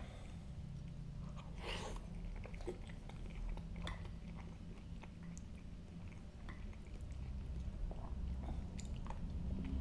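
Close-up chewing and wet mouth smacks of a person eating macaroni in ketchup, scattered short clicks, over a steady low hum.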